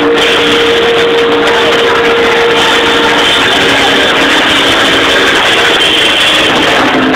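Loud live drum kit, played busily with snare, toms and cymbals, over an electric console organ holding sustained chords.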